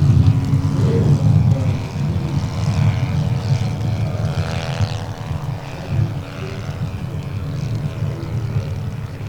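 The 85 cc four-stroke petrol engine of a large 1:3 scale RC SPAD S.XIII biplane running under power, its pitch shifting as the plane passes about three to five seconds in. Strong wind rumbles on the microphone underneath.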